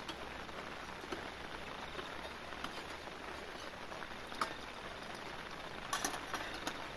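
Steady rain hissing on the tent, with a few light metal clinks of a spoon against a steel cup and pot, a small cluster of them near the end.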